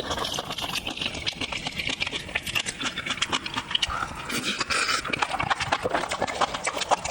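Close-miked eating: rapid, irregular wet chewing and smacking clicks of a mouth working through food.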